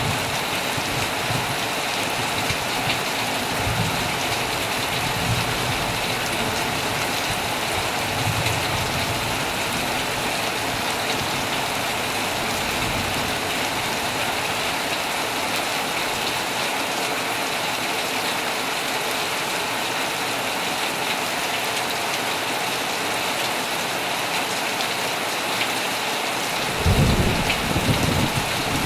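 Heavy rain falling steadily on an old tent, with a few faint low rumbles of thunder and a louder thunder rumble near the end.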